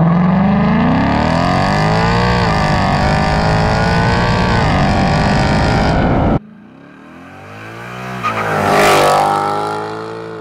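Ford Mustang's V8 accelerating hard, its pitch climbing steadily with a short dip about two and a half seconds in at a gearshift. It cuts off abruptly about six seconds in, and then a car passes by, swelling to a peak and fading.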